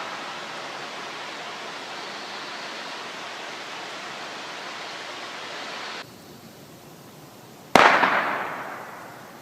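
A single gunshot near the end: one sharp crack that echoes and dies away over about a second and a half. Before it, a steady hiss that drops off suddenly a couple of seconds before the shot.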